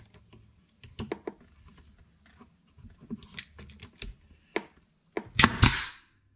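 Scattered light clicks and knocks of tool and wood being handled, then near the end a pneumatic nail gun fires into the cedar roof board with a sharp crack and a short hiss of air.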